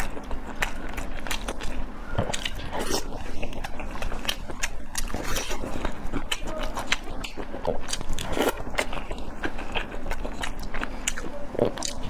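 Close-miked eating sounds: a person chewing food in sauce, with wet, sticky mouth clicks and smacks and occasional bites, irregular throughout.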